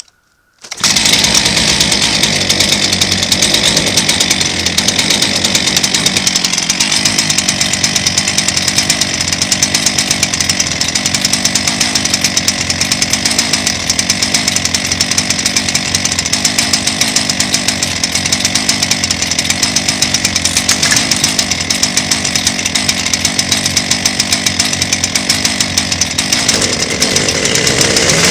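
Two-stroke chainsaw running hard at high revs. It starts abruptly about a second in, holds a steady, loud note, and rises in pitch near the end as the engine speeds up.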